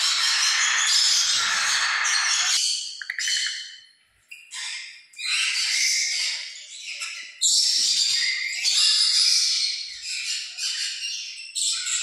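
Caged parrots squawking and chattering with harsh, high-pitched calls. The calls run unbroken for about the first two and a half seconds, then come in ragged bursts with short gaps.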